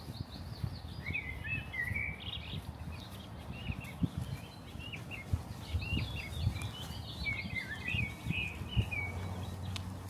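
Small birds chirping and twittering in quick, short calls, over a steady low rumble with scattered soft thuds.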